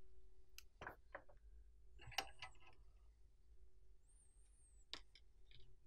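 Near silence: a few faint clicks and taps of small tools and parts being handled on a workbench, the loudest about two seconds in, over a faint steady hum.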